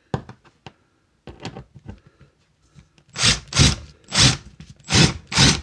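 A few small handling clicks, then an 18-volt Milwaukee hex impact driver run in short trigger bursts, about five in quick succession starting about three seconds in.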